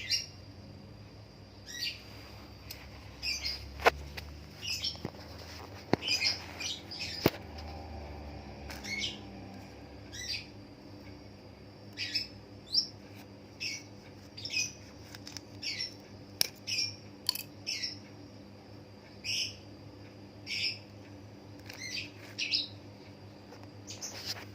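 A small bird chirping again and again, short high chirps that fall in pitch, about one every second, with a few sharp clicks in between.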